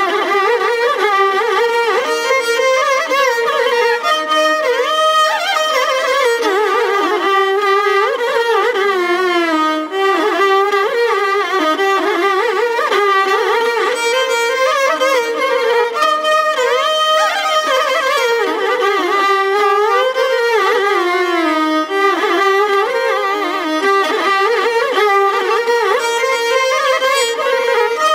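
Two violins playing a Carnatic kriti together in raga Begada, a continuous melody with notes that slide and waver. No percussion accompanies them.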